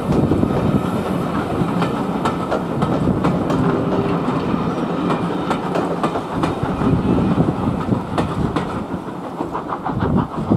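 Railway passenger coaches rolling past, their steel wheels clicking over the rail joints above a steady rumble. Near the end a quick run of clicks comes as the last coach's wheels cross a joint, and the sound starts to fall away.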